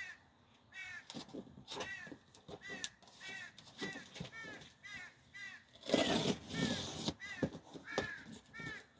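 A shipping box being opened by hand: a run of short, high, squeaky chirps, with a loud burst of rustling and tearing about six seconds in.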